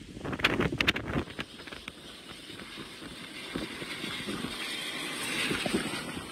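Hurricane wind buffeting the microphone in gusts, then the hiss of a car's tyres throwing water off a flooded road, swelling as it passes through the driving rain.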